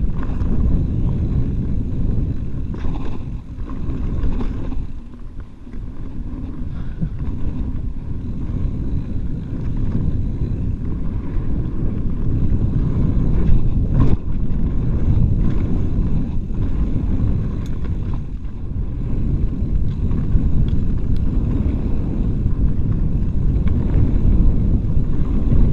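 Mountain bike rolling over dirt singletrack, with heavy wind rumble on the microphone and tyre and trail noise, plus occasional knocks and rattles from bumps. The sharpest knock comes about fourteen seconds in.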